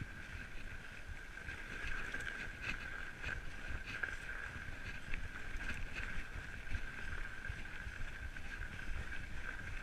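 Fat-tyre mountain bike rolling over a packed-snow trail: steady tyre and bike noise with a low rumble, a constant high hum, and scattered light knocks and rattles, with some wind on the microphone.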